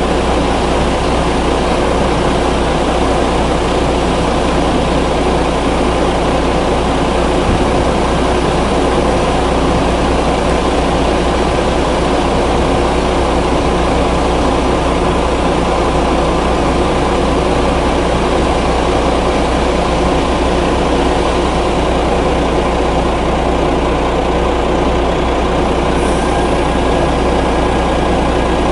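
Heavy diesel truck engines running steadily: an even, low engine drone that holds the same level throughout.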